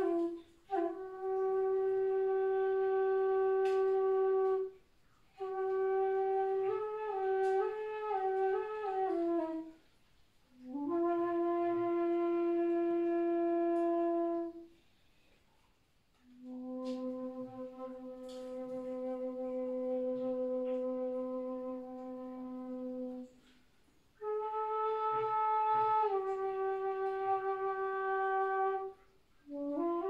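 Background music: a solo wind instrument playing a slow melody of long held notes in phrases a few seconds long, split by short pauses. A few quick ornamental turns come in the second phrase, and a lower, softer held note comes about halfway through.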